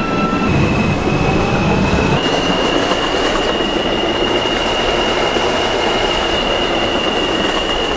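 New York City subway train running between stations, heard from inside the car: steady rumble and rattle of wheels on track, with a faint rising motor whine over the first two seconds and a steady high squeal or whine that steps up in pitch about two seconds in.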